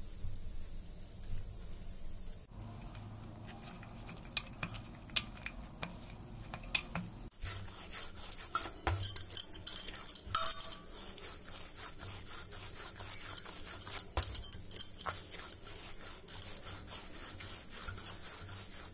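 Hands mixing maida flour and kneading soft dough in a stainless steel plate: soft rubbing with light scraping and clinking on the metal, busier and louder from about seven seconds in.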